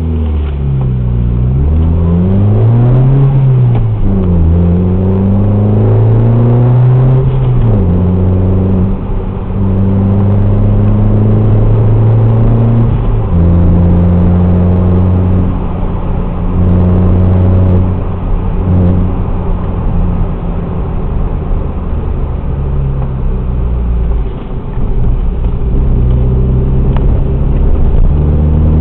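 Ford Fiesta Mk7 engine through a Friedrich Motorsport aftermarket exhaust. The revs rise and fall over the first few seconds, then the note holds steady for several seconds at a time, with dips and changes in pitch every few seconds.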